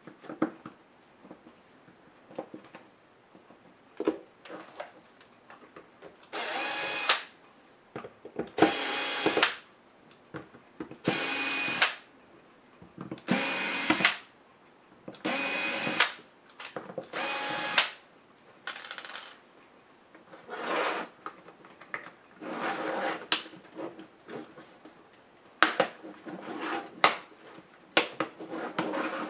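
Cordless electric screwdriver driving out the small screws of a laptop LCD screen frame, run in about six short bursts of roughly a second each, each a steady whir. Near the end come scattered clicks and knocks of plastic parts being handled.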